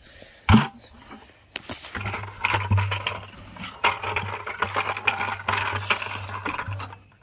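An empty plastic five-gallon bucket hitting dry dirt with a single loud thud about half a second in, followed by several seconds of rustling and scuffing.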